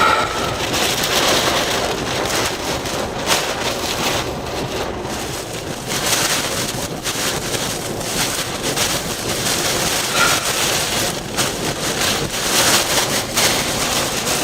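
Hurricane-force wind and heavy rain from a major hurricane's eyewall, the noise swelling and easing in gusts, with wind buffeting the microphone.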